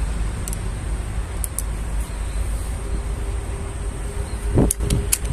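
Steady low background rumble with a faint buzzing hum that comes in about halfway through, then a short cluster of sharp clicks and knocks about four and a half seconds in.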